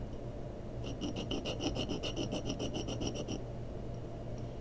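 A small steel watch pinion, held in a collet, rubbed quickly back and forth on a 400-grit diamond plate to grind its head down: a run of rasping strokes, about six a second, that starts about a second in and stops a little past halfway.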